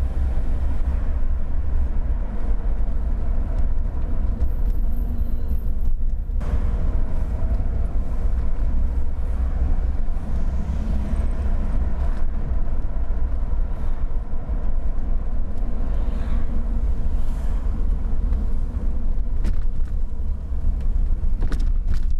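Steady low rumble of a moving car heard from inside the cabin: engine and tyre road noise, with a few faint clicks near the end.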